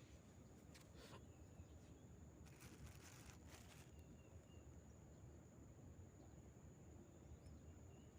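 Near silence: faint outdoor ambience with a thin, steady high-pitched tone and a few soft rustles in the first half.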